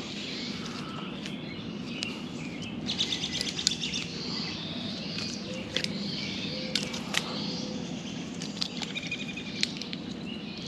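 Birds chirping repeatedly over a steady outdoor background hiss, with scattered sharp clicks and rustles from a rope tether and its metal hardware being handled against a tree trunk.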